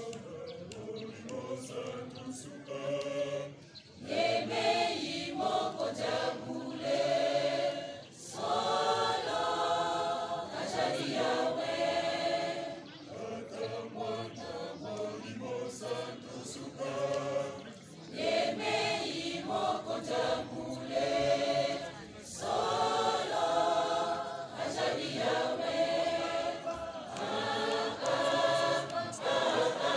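Large mixed choir of men's and women's voices singing together in harmony, led by a conductor, in phrases broken by short pauses every few seconds.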